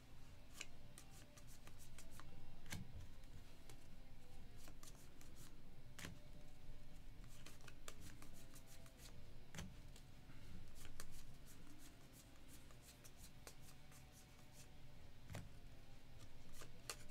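Panini Score football trading cards being handled and flipped through by hand, a quiet run of light, irregular clicks and slaps as card slides over card.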